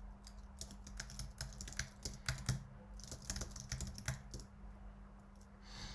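Typing on a computer keyboard: irregular runs of keystroke clicks with short pauses, over a faint steady low hum.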